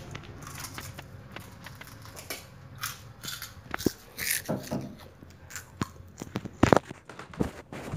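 Irregular crackling, clicking and rustling handling noises, with one loud knock about two-thirds of the way through.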